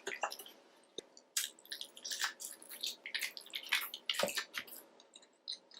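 Close-miked eating sounds: a person chewing seafood in sauce, a run of short, wet, squishy smacks and clicks at an irregular pace.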